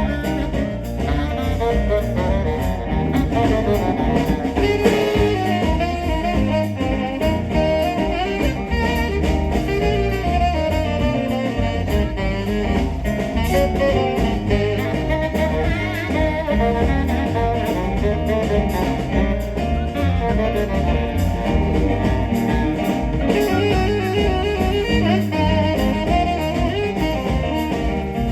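Jazz music with saxophone over a steady beat.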